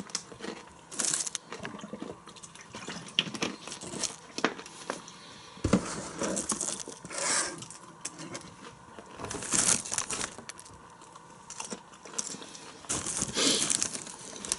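Foil-lined popcorn bag crinkling in short, irregular bursts as a hand rummages in it for popcorn.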